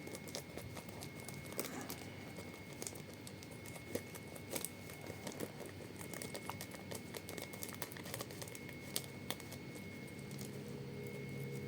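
Blind-bag card packets crinkling and rustling as they are handled and opened, with scattered small clicks and ticks.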